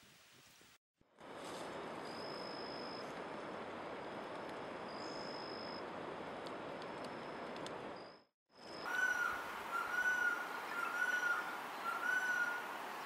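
Steady rushing forest background noise with a few thin, level high whistles. Then a Golden-headed Quetzal calls four times, one mellow, slightly rising-and-falling note about once a second.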